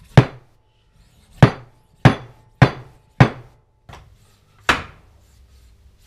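Seven hammer blows, struck one at a time at an uneven pace, driving an aftermarket fork seal into a Yamaha XS1100 lower fork leg. The seal is too tight: a lip on its outside catches in the circlip groove, so it will not start by hand.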